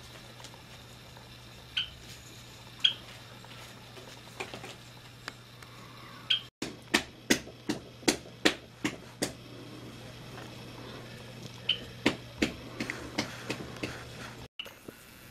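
Sharp clicks: a few scattered ones, then a quick run of about two to three a second in the middle and another cluster near the end, over a low steady hum.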